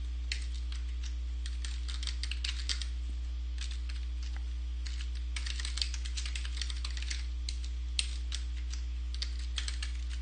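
Typing on a computer keyboard: irregular runs of keystrokes with short pauses between them, over a steady low electrical hum.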